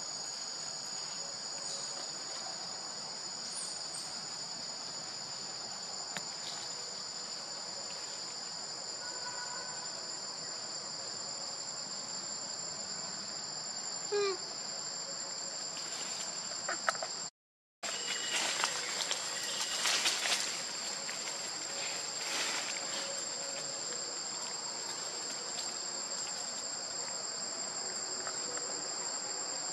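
Steady, high-pitched insect chorus droning without a break, cutting out completely for a split second a little past halfway. A few faint rustles and clicks sound over it.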